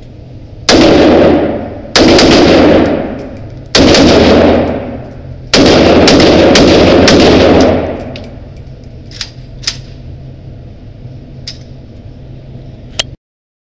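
WASR-10 AK-47 rifle (7.62×39mm) firing in an indoor range: four loud spells of shooting, the last the longest, each ringing off the walls and overloading the recording. Then a few fainter sharp cracks, and the sound cuts off near the end.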